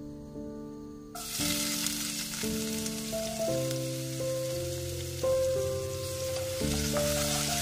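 Chopped vegetables dropped into hot oil in a non-stick pot, bursting into a sizzle about a second in and frying steadily while stirred with a wooden spatula. Gentle background music plays throughout.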